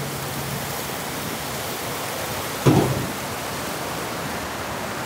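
Steady rushing of river water, with one dull knock about two and a half seconds in as a hot glass jar is set down on an aluminium pot lid.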